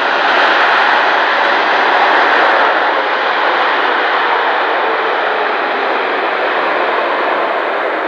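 Boeing 787-8 Dreamliner's jet engines running as the airliner rolls out along the runway after touchdown: a steady, loud rush of jet noise that slowly fades and loses its top end from about three seconds in.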